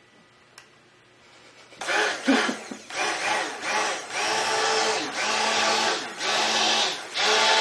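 Stick blender pulsed in a bucket of raw cold-process soap batter: about six short runs of motor whir, starting about two seconds in, with brief gaps between. The batter is being brought to emulsion in short pulses so that it does not reach trace.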